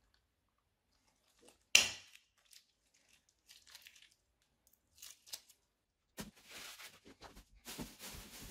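A plastic zip-lock bag being handled: one sharp ripping sound about two seconds in, scattered light crackles, then dense crinkling of plastic over the last couple of seconds.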